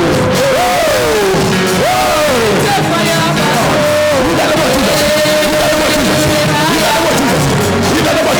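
Loud worship music: a band plays while a lead voice slides up and down in long, wailing phrases over it.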